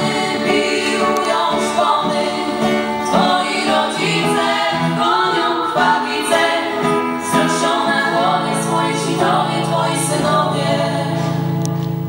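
A group of girls singing a song together over instrumental backing, with a steady low note held through the last few seconds.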